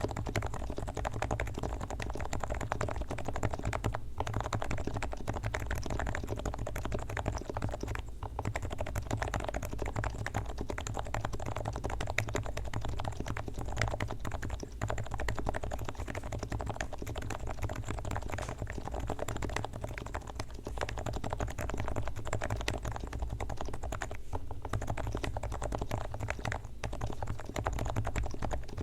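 Continuous fast typing on a Leopold FC660C low-noise electro-capacitive keyboard with 45 g switches. The switches are fully lubricated with Krytox, and the sound is an unbroken stream of keystrokes.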